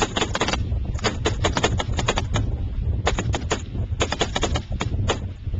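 Live rifle fire from several soldiers' assault rifles: rapid, irregular cracking shots, several a second, in clusters with short gaps. Wind rumbles on the microphone underneath.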